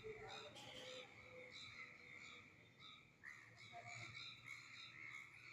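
Faint chorus of many small birds chirping at once, short overlapping calls with no pause.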